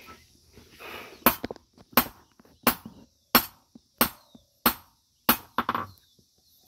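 Blacksmith's hand hammer beating a piece of iron on a small anvil. Seven steady, evenly spaced blows about one and a half a second, each with a short metallic ring, then a few lighter quick taps near the end.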